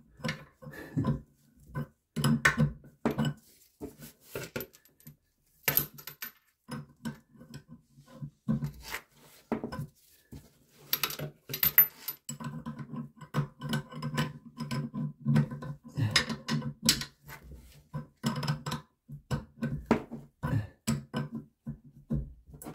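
Irregular metallic clicks and clinks of a wrench working the nut of a braided stainless-steel supply hose at a toilet tank fitting, as the connection is tightened by hand.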